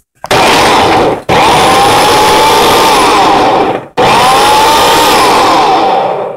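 Electric blender motor run in three loud pulses, the first short, then two of a couple of seconds each, its whine rising as it spins up and dropping as it stops.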